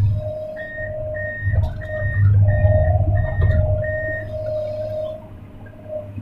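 Hydraulic excavator working, heard from inside the cab: a low engine drone under a steady whining tone. Six short, evenly spaced high beeps from the machine's warning alarm sound from about half a second in to about four seconds.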